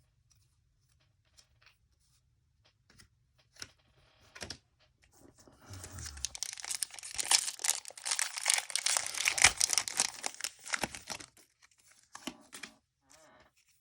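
Foil booster-pack wrapper of Pokémon trading cards being torn open and crinkled, a dense crackling tear lasting about five seconds in the middle. A few light clicks and taps come before and after it.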